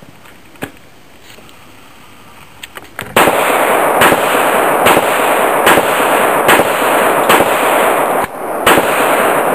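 Taurus PT1911 .45 ACP pistol fired eight times in slow, steady succession, about one shot every 0.8 seconds, starting about three seconds in: one magazine emptied. A loud hiss fills the gaps between shots, and a few light clicks come before the first shot.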